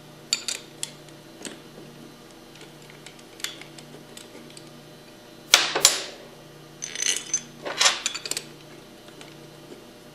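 Metal clinks and taps as a pump's discharge manifold and its steel bolts are handled and fitted to the pump body, with louder bursts of clinking a little past halfway and again about two seconds later.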